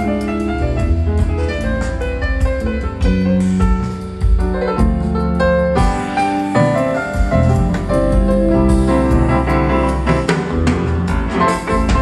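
Live band music with drums, guitar and piano played back through a pair of Yamaha NS-C150 center-channel speakers stood upright as a stereo pair, with a Yamaha YST-RSW300 subwoofer carrying the bass.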